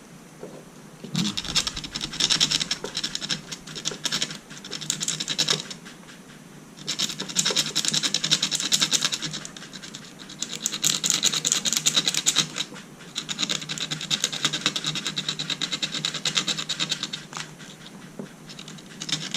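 Screwdriver tip rubbed back and forth on sandpaper in quick scraping strokes, in four long bouts with short pauses between, roughening the bit so it bites a seized laptop screw.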